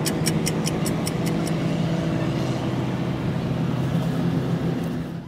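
An engine running steadily at an even speed. In the first second and a half there is a quick run of sharp clicks, about six a second.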